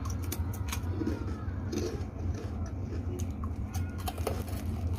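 Crisp krupuk crackers crunching as they are bitten and chewed: a string of sharp crunches over a steady low hum.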